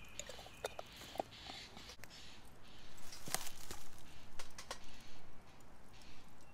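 Burning lumpwood charcoal crackling inside a small steel Firebox stove, with scattered sharp pops, the loudest a little over three seconds in. A songbird calls at the start, over a few light clicks.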